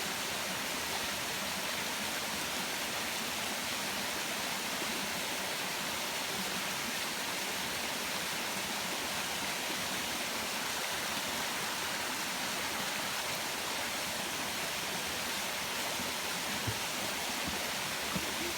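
Waterfall running: a steady rush of falling water.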